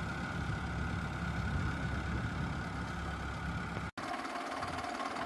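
Mahindra Arjun tractor diesel engine idling steadily. The sound breaks off for an instant about four seconds in, and after that the low rumble is weaker.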